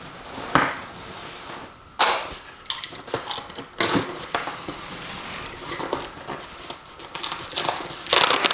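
A cardboard shipping box being opened: a dull knock as the box is set on the counter, then irregular scratchy clicks and rasps as the packing tape is picked at and cut, with a louder stretch of tape and cardboard tearing near the end.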